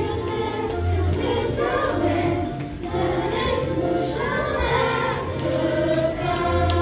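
A large children's choir singing a song together over instrumental accompaniment with sustained low bass notes.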